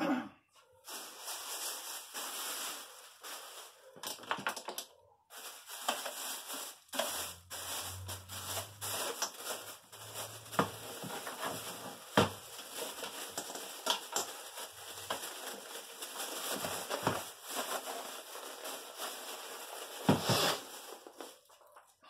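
Thin clear plastic bag crinkling and rustling as it is handled and pulled over a small boxy stereo unit, with many sharp crackles. The loudest crackle comes about 20 seconds in.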